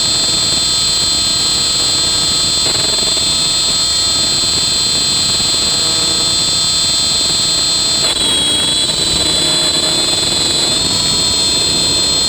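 Electric RC helicopter (Rave 90 ENV) heard from a camera on its tail boom: a steady, high whine from its electric motor and drive gears, with rotor noise. About eight seconds in, the whine drops slightly in pitch.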